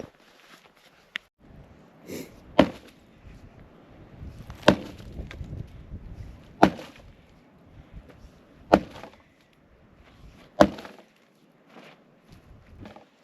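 Tent stake being hammered into hard ground: five heavy strikes about two seconds apart, with faint scraping between them.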